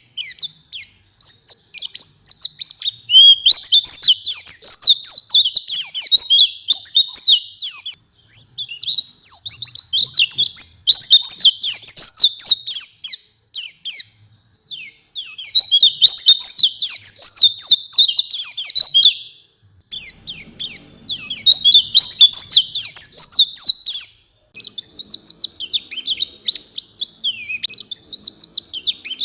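White-eye (pleci) singing a fast, high twittering song in bouts of several seconds, broken by short pauses.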